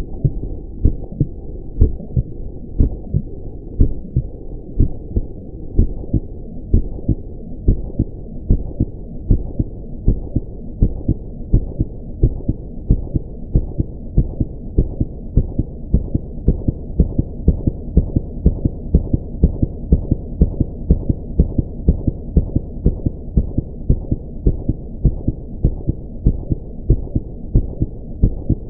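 Human heartbeat sound effect speeding up steadily from a slow pulse toward a fast one, part of a 60-to-120 bpm build. The bass-heavy thumps sit over a continuous low rumble.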